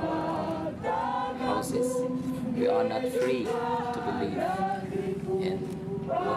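A choir singing slowly, several voices together holding long, drawn-out notes.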